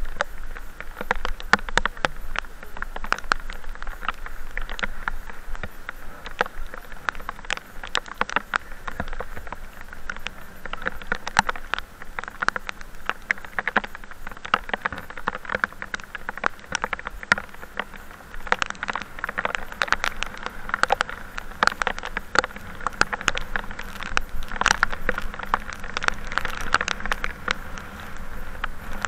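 Rain pattering: a dense, irregular stream of close raindrop hits, over a steady low rumble.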